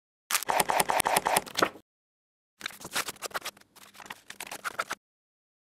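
Paper rustling and folding sound effects: two bursts of quick, crackly rustles, the first about a second and a half long, the second, after a short pause, about two and a half seconds.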